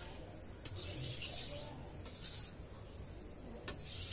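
Steel parang blade stroked across a coarse river-stone whetstone, giving a few scraping strokes of different lengths, the longest about a second in.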